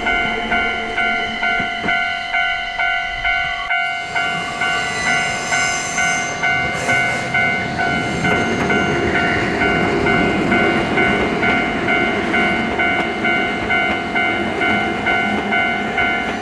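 Japanese level-crossing warning bell ringing in a steady, rapid ding-ding, about two strokes a second. From about four seconds in, a Nankai Koya Line train passes over the crossing with a rising rumble of wheels on rails.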